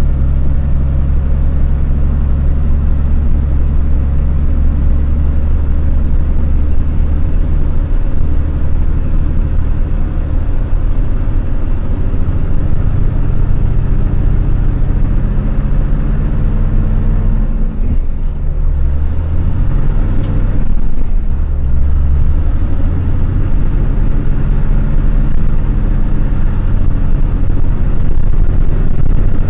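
Logging truck's diesel engine running under way, heard from the dashcam in the cab: a steady low engine note whose pitch shifts and briefly dips about two-thirds of the way through, then settles again.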